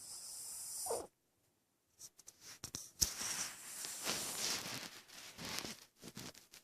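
A sleeping dog's noisy breathing between snores: a wheezy intake of breath with a falling tone in the first second, a pause, then a run of uneven, snuffling breaths with small clicks.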